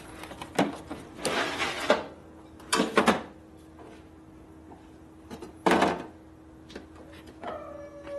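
Shop equipment, most likely a heavy floor jack, being moved: three loud clattering scrapes with small knocks between them, and a squeal sliding down in pitch near the end.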